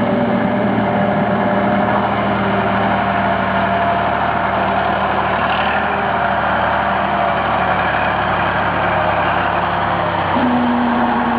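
Heavy Ural six-wheel-drive truck's diesel engine running steadily as the truck drives slowly, a continuous low drone. About ten seconds in, the engine note changes.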